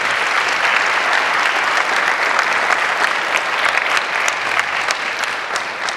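Audience applauding, a dense clapping that begins to die down near the end.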